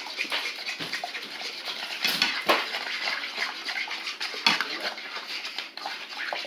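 Metal utensil stirring batter in a pot, scraping and clinking irregularly against the pot's sides and bottom, with a few sharper knocks about two seconds and four and a half seconds in.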